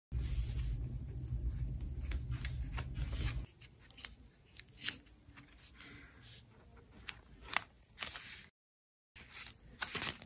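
Hands handling paper and a strip of sticker tape during journaling, making soft rustles, then scattered crisp crinkles and clicks. A low hum runs under the first few seconds and stops.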